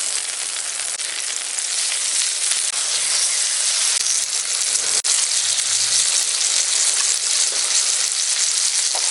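Steak sizzling as it cooks over a campfire: a steady frying hiss with fine crackles of spattering fat, with a brief dip about five seconds in.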